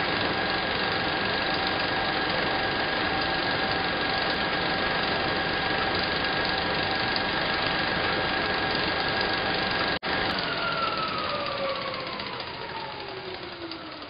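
Mechanical whirring sound effect, a motor-like running whir with a steady hum tone. It drops out for an instant about ten seconds in, then winds down with a falling pitch and fades out.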